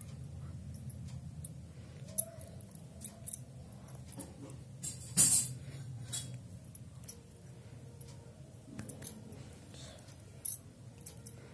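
Handling noise from hands moving close to the microphone: scattered light clicks and taps, one louder about five seconds in, over a low steady hum.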